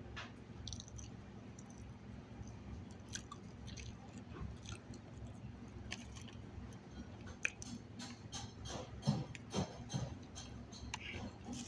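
A person chewing and biting food close to the microphone, with wet mouth clicks and a few louder bites about nine to ten seconds in.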